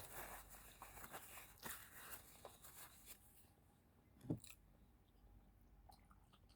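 Quiet handling noise: faint rustling and crinkling with small clicks for about three seconds, then a single soft thump about four seconds in.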